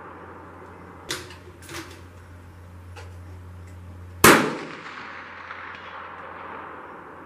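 Two fainter sharp cracks about a second in, under a second apart, then a loud rifle shot about four seconds in with a tail that fades over about half a second. The shooting is at a hanging steel plate target about an inch thick, which is left swinging.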